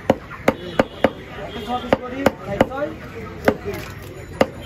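A large knife chopping through a fish onto a wooden chopping block: about nine sharp chops at an uneven pace.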